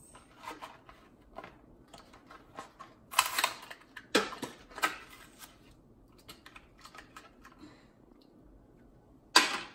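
Hot Wheels blister pack being opened, its plastic and card crackling and clicking in irregular bursts, with louder crackles about three to five seconds in and one sharp one near the end.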